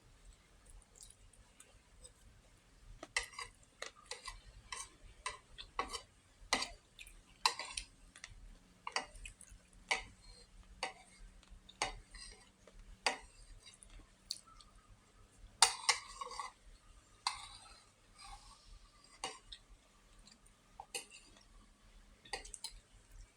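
Eating utensils clicking and clinking against dishware while eating, in irregular sharp taps about one or two a second, with a louder clatter about sixteen seconds in.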